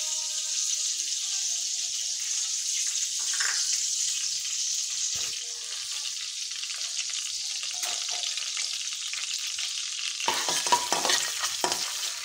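Chopped garlic frying in hot oil in a non-stick wok: a steady sizzling hiss, louder and choppier for a couple of seconds near the end.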